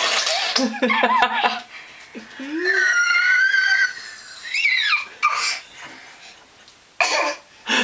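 A baby making funny vocal noises: one long, high-pitched squeal about three seconds in, a shorter squeal that rises and falls, and short breathy bursts, with laughter in the first second or so.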